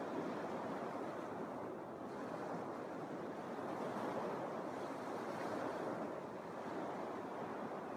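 Small Lake Michigan waves breaking and washing up a sandy beach, a steady wash that swells and eases gently.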